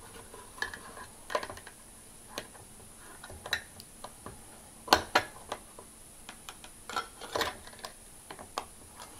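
Swiza D04 pocket knife's can opener blade levering its way around a tin can lid, making irregular sharp metallic clicks and scrapes. The loudest ones come about five seconds in and again around seven seconds.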